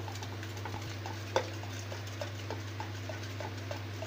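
A steel spoon beats yogurt in a stainless-steel bowl. Its strokes tap the bowl in light, regular clicks about three a second, with one louder knock about a second and a half in, over a steady low hum.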